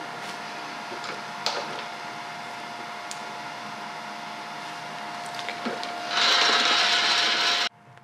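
Sharp LMV50 vertical mill running, its spindle turning an edge finder, a steady hum with one held tone and a few light clicks. About six seconds in a much louder hiss comes in for a second and a half, then everything cuts off abruptly.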